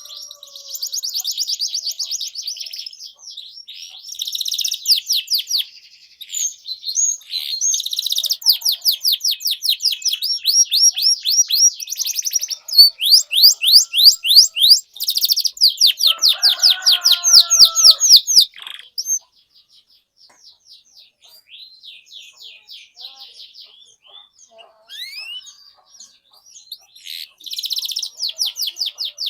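Domestic canary singing in long, rapid trills of repeated high notes, with a few lower falling notes in the middle. The song goes quieter and more broken for several seconds before another loud trill near the end.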